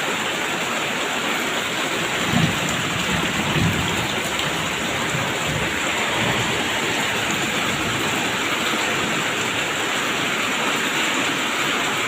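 Steady rain falling, a dense even hiss, with a few brief low thumps between about two and four seconds in.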